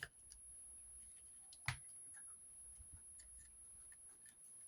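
Near silence, broken by a few faint, scattered clicks from handling craft materials, perhaps scissors. The sharpest click comes about a second and a half in.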